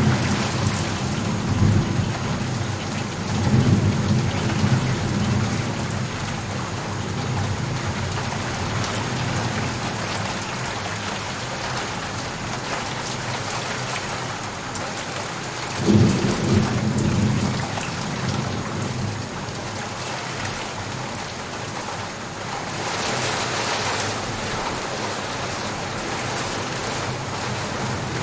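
Steady rain of a thunderstorm, with thunder rumbling in the first few seconds and again about halfway through. The rain swells briefly near the end.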